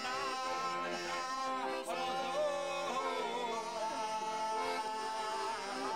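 Traditional southern Italian folk music: a voice sings an ornamented, sliding melody over steady held chords from an accompanying instrument. About halfway through, the voice settles on one long held note.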